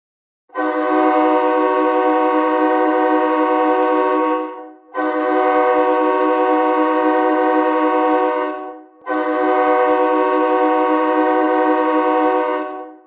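Hockey goal horn, an air horn sounding a multi-note chord, blown in three long blasts of about four seconds each with short gaps between them.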